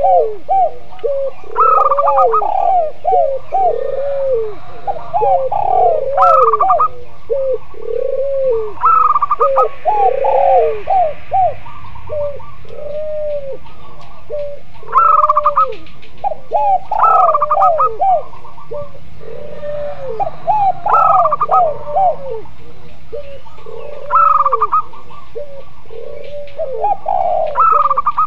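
Spotted dove, zebra dove and collared dove cooing together: a steady run of low arched coos about one a second, overlapped every couple of seconds by bursts of quicker, higher notes.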